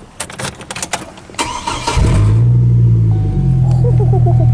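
Keys rattling and clicking, then about two seconds in a five-cylinder truck engine with its muffler bypassed starts suddenly. It runs a little higher for about a second, then settles into a loud, steady idle.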